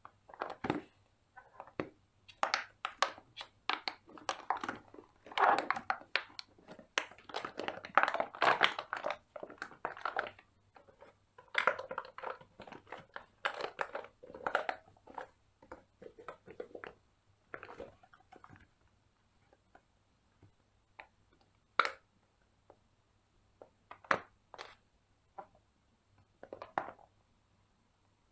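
Bubbles of a large silicone pop-it fidget toy being pressed and popping: a quick, uneven run of soft pops for the first half or so, thinning out to scattered single pops.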